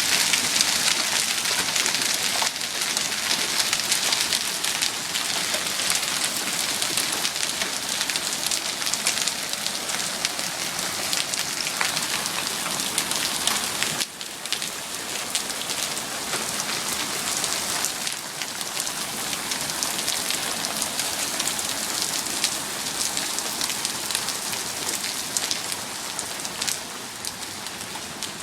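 Hail pelting down hard, a dense clatter of countless small impacts on surfaces. It eases a little about halfway through and keeps tapering off.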